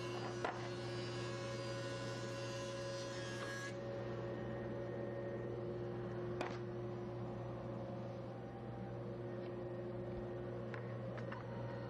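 Steady electrical hum with a few faint clicks. No planer noise is heard.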